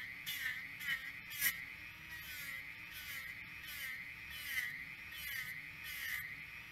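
Flexible-shaft rotary tool running at high speed with a small buffing wheel worked along a steel shear blade: a steady high whine whose pitch dips with each pass as the wheel is pressed into the metal, with a short hiss of the wheel on the steel at each stroke.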